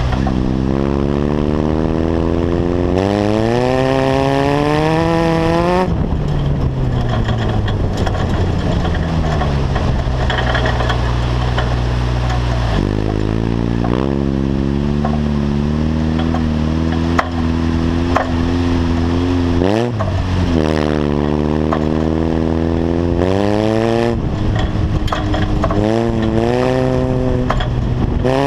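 Off-road buggy's engine running under load on a gravel track, its pitch climbing several times and dropping back sharply as the throttle is worked, over the rough rumble of the ride.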